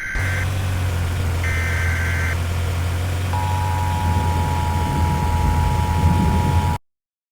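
Weather-radio emergency alert signal: two short bursts of warbling data tones (the SAME alert header), then the steady two-tone attention signal for about three seconds, which cuts off abruptly. A loud low hum runs underneath throughout.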